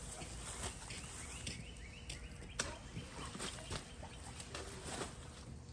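Faint outdoor scattered clicks and rustles, with a short run of small rising bird chirps about two seconds in.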